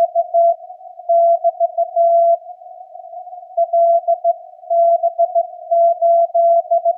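Slow Morse code (CW) at about 15 words per minute from a Yaesu FTDX10 HF transceiver: a single mid-pitched tone keyed in dots and dashes, with receiver hiss through the narrow CW filter between elements. The characters are 'GD DX', the break sign and the start of the callsign LB8IJ, with a pause of about a second in the middle.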